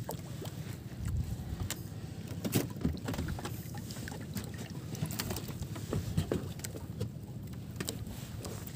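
Small waves lapping and slapping against the hull of a small outrigger boat as it rocks, with a low wind rumble on the microphone and scattered small clicks and knocks.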